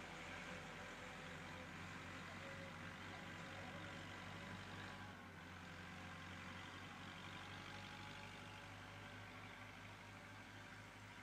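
Faint, steady low hum with a light hiss. No distinct bird calls stand out.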